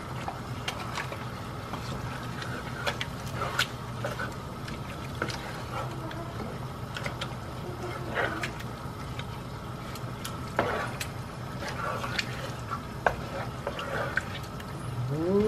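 A wooden spoon stirring through a large pot of wet jambalaya rice, with irregular scrapes and clicks of the spoon against the pot over a steady low hum.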